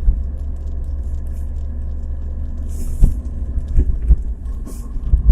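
Chevrolet Niva driving, heard from inside the cabin: a steady low rumble, with a sharp knock about three seconds in and two lighter knocks about a second later. The knocks are the drivetrain clunks the owner hears on rough road, which he puts most likely in the front differential but possibly in the gearbox.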